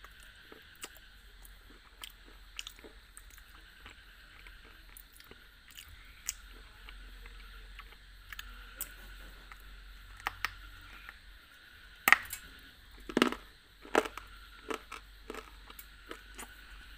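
Close-miked biting and crunching of a hard white chalk-like stick: scattered small crackles and mouth clicks at first, then a few loud, crisp bites about twelve to fourteen seconds in, with smaller crunches after.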